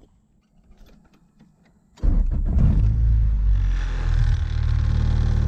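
1998 Integra's engine starting about two seconds in and settling into a steady idle, with a few faint clicks before it turns over.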